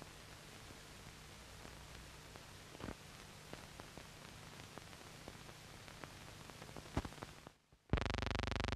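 Faint scratches and clicks of a chickadee moving about inside a nest box, over the steady hiss and low hum of the box's microphone. A sharper click comes near the end, the sound drops out briefly, and a loud, evenly pulsing buzz cuts in.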